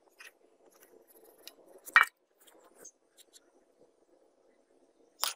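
Loose sand being packed and shifted by hand around a metal cleaver blade in a wooden frame, giving a faint gritty rustle. A sharp clink comes about two seconds in, and another just before the end.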